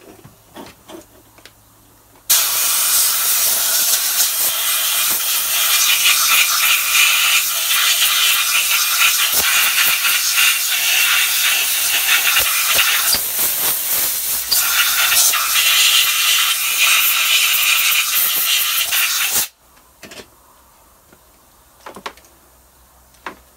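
Compressed-air blow gun hissing steadily and loudly, blasting dirt and debris out of the spark plug wells of the engine's cylinder head. It starts abruptly a couple of seconds in and cuts off abruptly a few seconds before the end.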